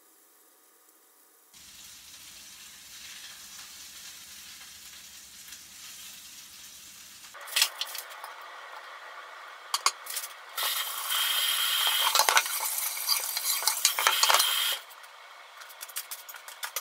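Kitchen work sounds: a faint steady hiss, then clattering clicks and knocks, with a loud hissing stretch of about four seconds in the middle.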